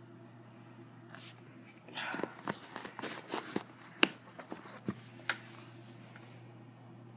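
Handling noise of a small portable MP3 player being held and its buttons worked: rustling with several sharp clicks and knocks from about two seconds in to about five seconds in, over a steady low hum.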